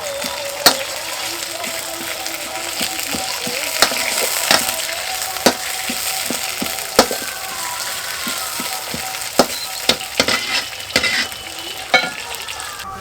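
Food frying in hot oil in a pan, with a steady sizzle, while a metal spatula stirs it, scraping and knocking against the pan many times.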